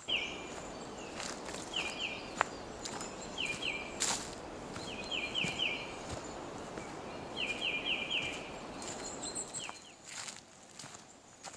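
A bird calling repeatedly, in short series of two to four quick falling notes. The series come every second or two over a steady background hiss.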